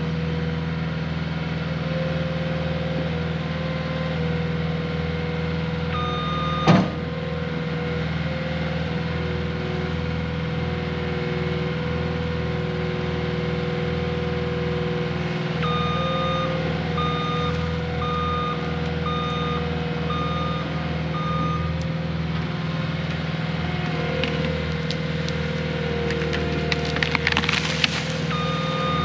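Cat 259D compact track loader's diesel engine running steadily, its backup alarm beeping about once a second as it reverses. A single loud crack about seven seconds in, and a burst of cracking and snapping near the end as the tree it is pushing breaks.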